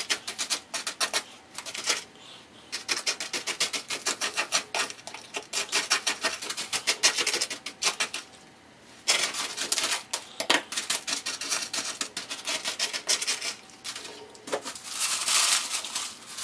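A chopstick being poked and worked into coarse granular bonsai substrate in a pot, a fast, gritty clicking and rattling of the grains, with a couple of brief pauses. This is chopsticking the soil in while backfilling around the roots after a repot.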